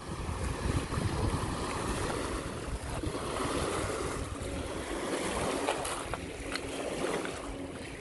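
River water splashing and lapping as people wade through the shallows, with wind rumbling on the microphone.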